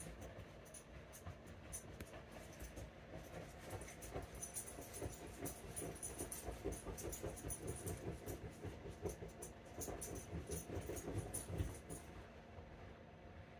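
A small dog scratching and rustling at couch cushions and a blanket, trying to bury a treat, with a fast run of scratches that builds a few seconds in and eases off near the end.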